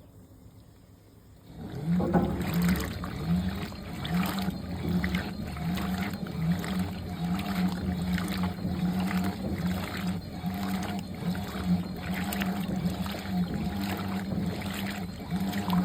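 Fisher & Paykel Pride MW511 top-load washing machine starts running about two seconds in: a motor hum that pulses in a regular rhythm, about once a second, with water running and sloshing in the tub.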